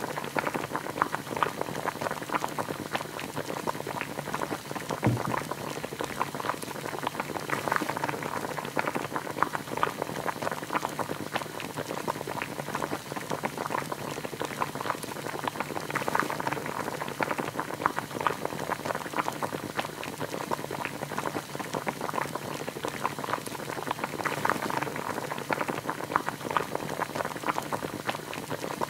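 Creamy chicken and vegetable soup boiling in a stainless steel pot, a steady dense bubbling with a soft thump about five seconds in.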